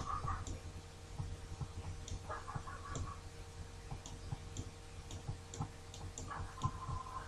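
Faint, irregular light clicks of a stylus tapping and writing on a tablet screen, over a low steady hum.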